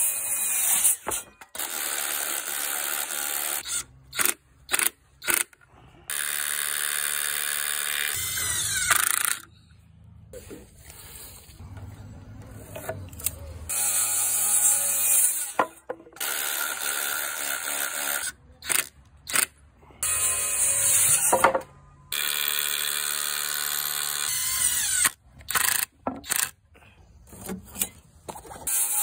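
FLEX circular saw cutting through pressure-treated lumber: several cuts of a few seconds each, with short trigger bursts and the blade spinning up and winding down between them.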